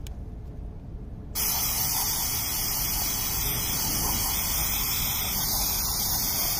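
Aerosol can of mass airflow sensor cleaner spraying in one long steady hiss that starts suddenly about a second and a half in, cleaning the sensor elements inside the mass airflow sensor housing.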